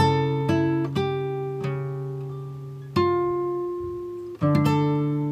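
Background music: a guitar playing plucked notes and strums, each struck note ringing and slowly fading before the next.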